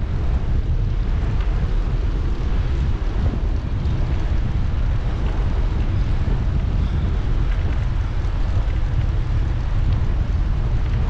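Wind buffeting a bike-mounted GoPro 8's microphone while cycling along at speed: a steady, loud, fluttering low rumble.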